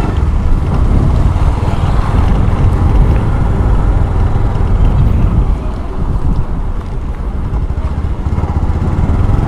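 Bajaj Pulsar 150 motorcycle's single-cylinder engine running as the bike rides along a street, a steady low rumble that eases a little about six seconds in.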